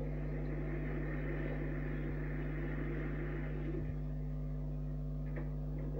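Cartoon fire engine driving sound effect, a steady engine-and-road rumble that fades out after about four seconds, played through a television speaker with a constant low electrical hum underneath.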